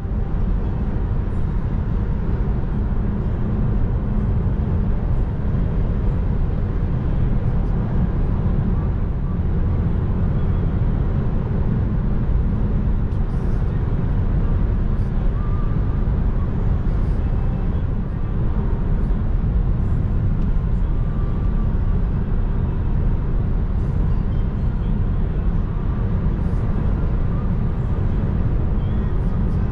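Steady road and wind noise inside the cabin of a Volkswagen ID.3 electric car cruising at motorway speed, about 115 to 140 km/h: a constant low tyre rumble with a fainter rush of wind above it.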